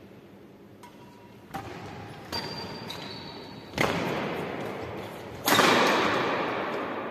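Badminton rackets striking a shuttlecock five times in a doubles rally, each hit a sharp crack that echoes through a large hall, the last two the loudest.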